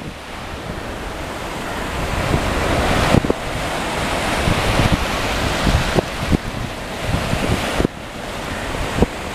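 Small surf waves washing up and foaming over a sandy beach in a steady rush that swells and ebbs. Wind buffets the microphone in low thumps.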